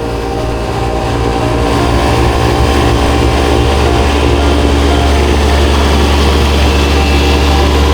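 An engine running steadily with a deep hum, growing louder over the first couple of seconds and then holding.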